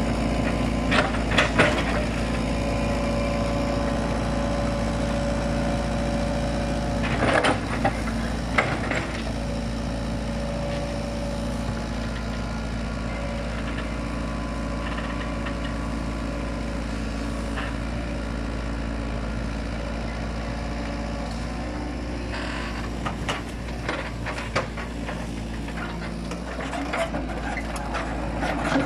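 Diesel engine of a Hitachi Zaxis 70LC tracked excavator running steadily while it works, with a few sharp knocks and clunks of logs being shifted: a cluster early on, two around the middle, and several near the end.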